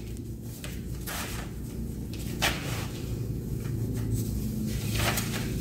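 Hands handling a freshly glued wooden inlay on paper and wiping it with a cloth rag: a few soft knocks and rustles, over a steady low hum.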